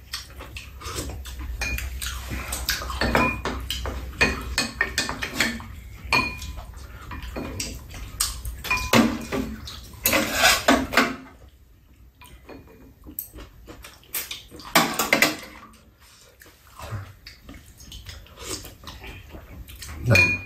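Chopsticks and spoons clinking and scraping against a frying pan and small bowls during a meal, in irregular clusters of sharp ticks with a few brief ringing clinks, and quieter stretches about halfway through.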